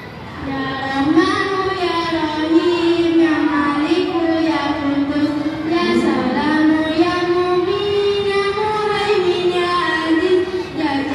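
A child singing a slow melody in long held notes that glide up and down.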